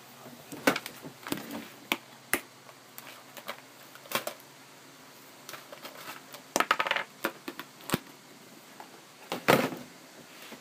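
Irregular sharp clicks and knocks, some in quick clusters with short scraping rustles, the loudest about a second in, around six and a half seconds in and near the end.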